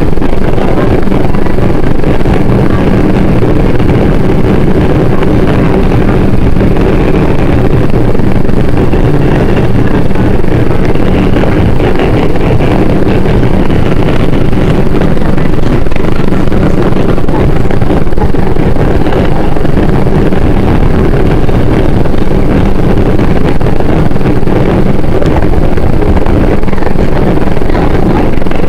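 New York City subway train (4 train) running at speed through the tunnel, a loud, steady noise of wheels on rail and car motion.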